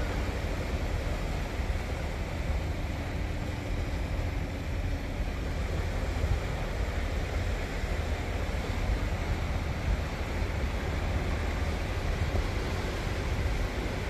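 Steady wash of small waves breaking along a shore lined with concrete tetrapods, with a low rumble underneath.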